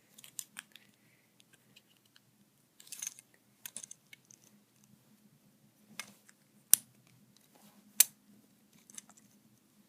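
Lego plastic pieces being handled, giving scattered light clicks and taps, with two sharper clicks about a second apart late on.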